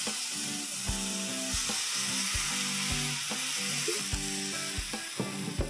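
Cold milk hitting a hot pan of ghee-fried vermicelli, sizzling with a steady hiss, over soft background music with a light beat.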